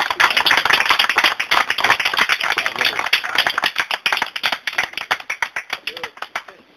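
Audience applauding, the clapping thinning to a few scattered claps and stopping near the end.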